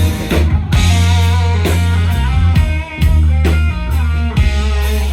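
Live country band playing an instrumental break: an electric guitar lead with bending, wavering notes over heavy bass and a steady drum beat, with no vocals.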